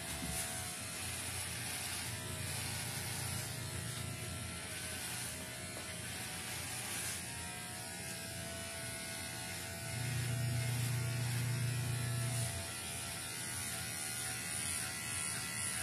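Corded electric hair clippers buzzing steadily as they shave a man's head close to the scalp. The hum grows louder for about two seconds, about ten seconds in.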